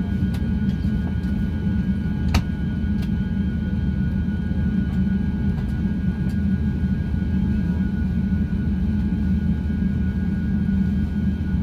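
Airbus A350-900 cabin noise: a steady low rumble with a thin steady whine above it from the engines and air system, and a sharp click about two and a half seconds in.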